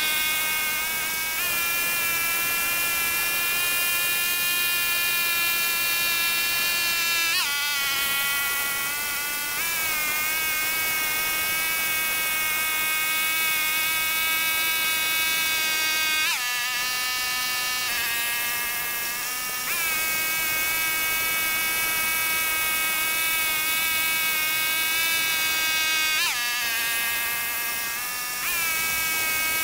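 Pasquali 996 tractor working a rear rotary tiller through ploughed soil: a steady, high-pitched buzzing engine-and-tiller whine. The pitch dips sharply and recovers several times, about every nine or ten seconds.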